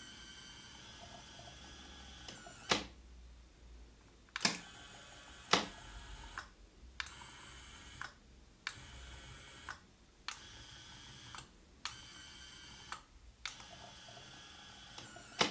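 Small DC gear motor whirring as it slides a model gate open in short runs, starting and stopping several times. About ten sharp clicks punctuate the runs, typical of the control board's relays switching the motor.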